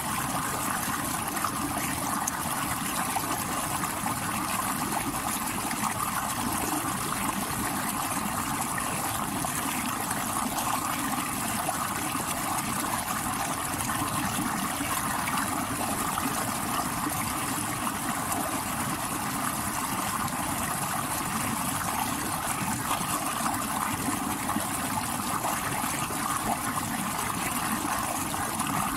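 A stream rushing over rocks: a steady, unbroken rush of water.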